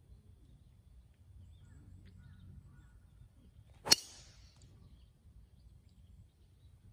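A single sharp crack of a Ping G410 3-wood striking a teed golf ball about four seconds in, with a brief ring after the hit.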